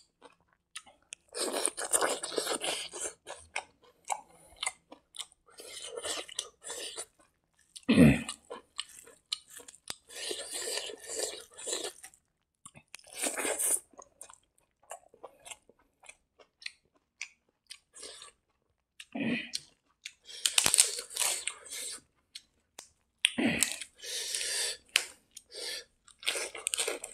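Close-miked chewing and crunching of hand-fed mouthfuls of rice with leafy mustard greens, in repeated bursts with short pauses between bites. There is one louder, deeper sound about eight seconds in.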